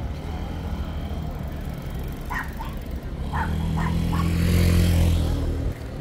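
A motor vehicle's engine running and passing close by, growing louder past the middle and dropping away sharply near the end. A dog gives a few short, sharp barks over it.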